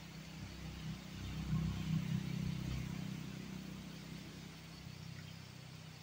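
A low rumble that swells about a second in, is loudest around two seconds, then slowly fades.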